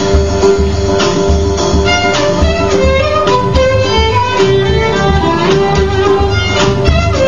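Instrumental background music: a stepping melody over a steady, pulsing bass.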